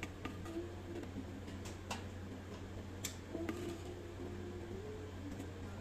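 Scattered light clicks and taps of a metal spoon against a clay steamer pot and its perforated plate as steamed modakams are scooped out, over a steady low hum.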